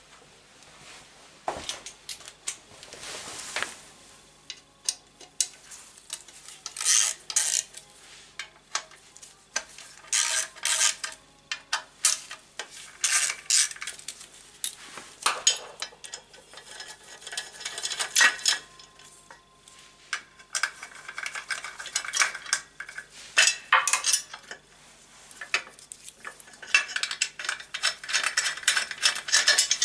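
Metal hand tools clinking and a socket wrench clicking in short bursts as bolts on a motorcycle's right footrest plate are worked loose.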